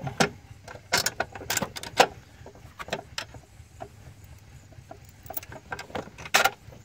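Steel M10 bolts and washers clinking together and against a metal filter mounting bracket as they are handled and fitted by hand: a run of irregular small metallic clicks.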